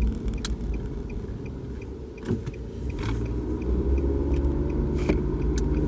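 Nissan Altima driving on a side street, heard from inside the cabin: a steady low rumble of engine and road noise, with a few faint clicks. The rumble dips about two seconds in and picks up again after about three seconds.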